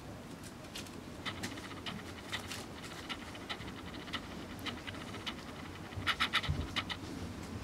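Young Rottweiler puppies panting and scuffling as they play, with short, high sounds scattered through; a quick run of louder ones comes about six seconds in.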